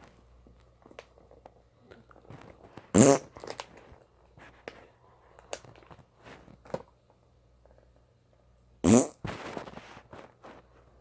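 Two short, loud fart sounds, one about three seconds in and another near the end, each rising quickly in pitch; faint clicks and rustles between them.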